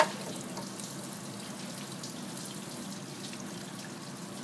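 Engine coolant trickling and dripping out of the open water-pump bore of a 3.1 L V6, draining now that the pump has been removed. One short sharp knock comes right at the start.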